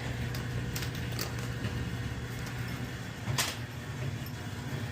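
Samsung electric dryer running steadily, its drum motor turning, with a low hum; this dryer is running but not heating because of a blown thermal fuse. A few light clicks, one sharper about three and a half seconds in.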